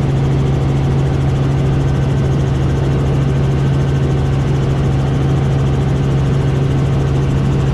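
Robinson R44 helicopter's piston engine and rotors running, a loud steady drone with a strong low hum.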